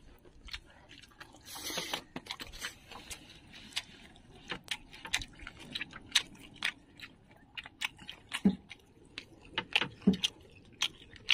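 Close-up chewing and mouth smacking, with many irregular sharp wet clicks, as grilled fish, rice and instant noodles are eaten by hand. A short rustling noise comes about two seconds in.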